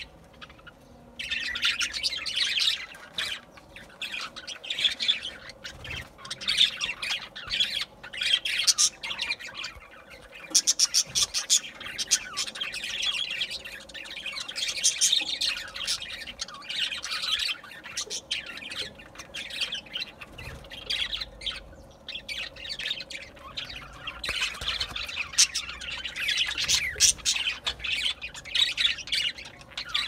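A flock of budgerigars chattering: a dense mix of warbling, chirps and squawks that starts about a second in and goes on almost without pause.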